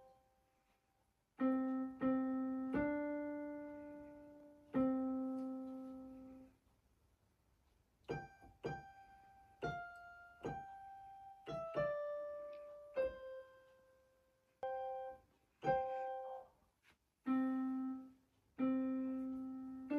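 Background music: slow, sparse solo piano, single notes and soft chords struck and left to fade, with short pauses between phrases.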